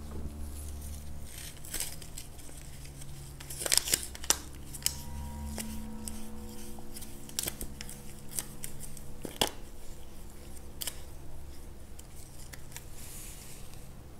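Paper packet being handled and wrapped with thread by rubber-gloved hands: soft rustles, crinkles and small scrapes, with a few louder crinkles about four seconds in and again near nine seconds.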